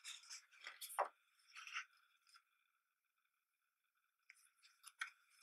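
Soft rustles and slides of thick paper as a page of a hardcover photobook is turned by hand, in the first two seconds and again near the end, with a quiet gap between.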